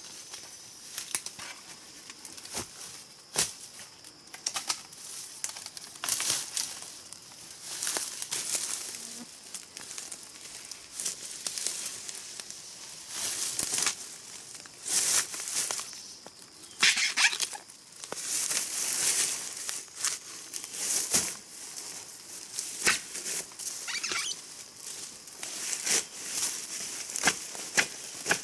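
Close, irregular rustling, crackling and tearing of leaves and plant stalks being handled, in short bursts of half a second to a second with brief pauses between, over a faint steady high tone.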